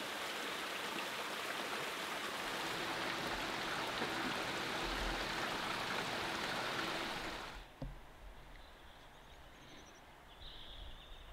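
Steady rushing of flowing water, like a mountain stream, that cuts off abruptly about three quarters of the way through, leaving a much quieter background with a few faint high chirps.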